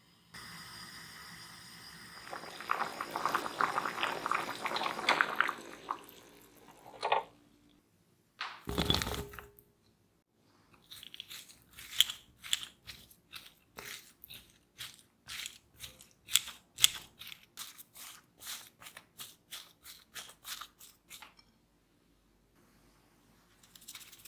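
Kitchen food-preparation sounds with no speech. A few seconds of dense scraping and squishing are followed by a single knock. Then comes a long run of light, sharp taps, about two a second, as utensils work the potato mixture.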